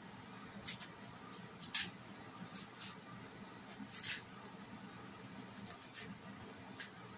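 Green plantain being peeled by hand: the stiff skin scraping and tearing away from the flesh in short, irregular scratchy rasps, the sharpest a little under two seconds in.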